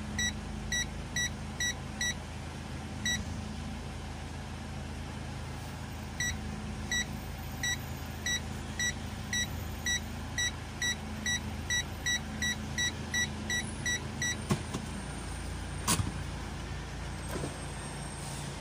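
An electronic car chime beeping about twice a second in runs with pauses, over the steady low hum of a stationary car. A single sharp click sounds near the end.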